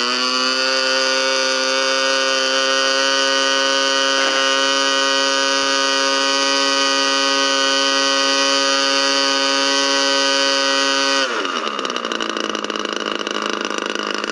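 GMS 120 model aircraft engine spinning a 16x8 Master Airscrew propeller at full throttle for a static thrust test: a steady, loud drone. About eleven seconds in it is throttled back and drops to a lower idle.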